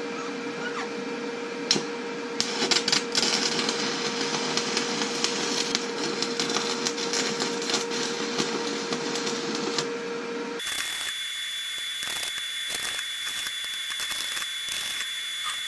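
Stick (arc) welding: the arc crackles continuously as weld is run with rods, over a steady hum. About ten seconds in the sound changes abruptly to a different rough, steady noise with a thin high whine.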